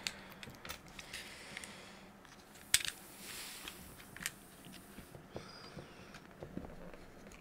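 Faint scraping and small clicks of a blunt craft knife cutting through heat-shrink tubing on a cardboard board, with one sharper click nearly three seconds in.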